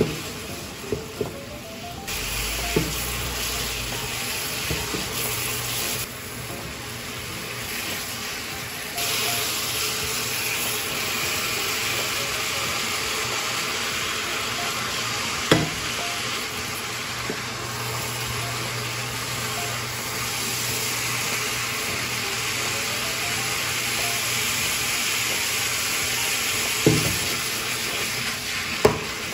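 Stir-fry sizzling steadily in a frying pan as vegetables, meat and noodles are turned over, with a few sharp clacks of the spatula and tongs against the pan.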